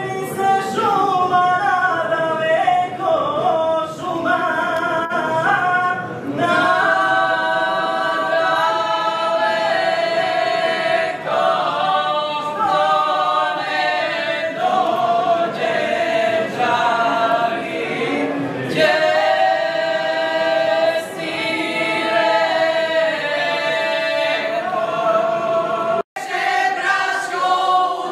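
Three women singing a folk song a cappella in harmony, with long held, ornamented notes. Near the end the sound cuts off for a moment and a larger group of women takes up the singing.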